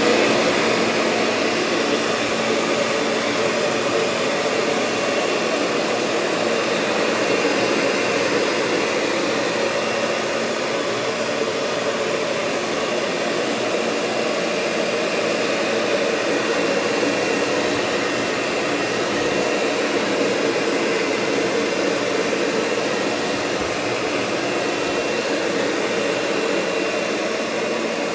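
Kirby upright vacuum cleaner running steadily with a high whine, its floor nozzle fitted with the plate and its roller and belt removed, vacuuming baking soda off a tile floor with the Tech Drive self-propel disengaged.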